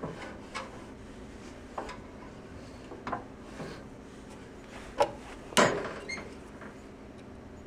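Hand work on a small engine's ignition points: a handful of separate metal clicks and knocks from tools and parts being handled, the loudest about five and a half seconds in.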